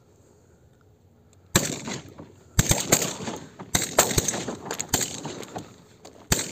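A rapid string of shotgun shots during a duck hunt, about seven in under five seconds, beginning about a second and a half in, each with a rumbling tail that carries into the next.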